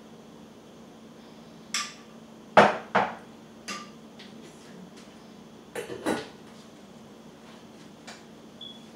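Steel pots and kitchen utensils clattering: scattered sharp knocks and clinks, the loudest about two and a half seconds in, a few of them with a short metallic ring, over a steady low hum.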